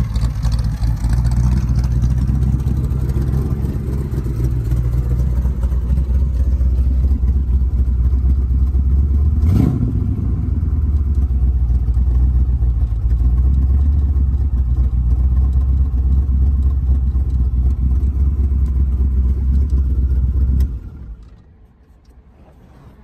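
The 1936 Ford Roadster's engine running steadily at idle, with one brief sharp sound about ten seconds in. Near the end it winds down and stops.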